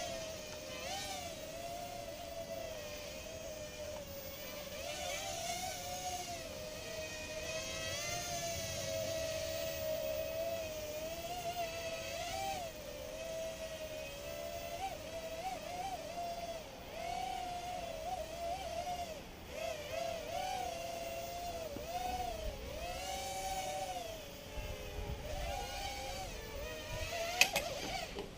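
Small quadcopter drone's motors whining, the pitch gliding up and down continually as it is flown.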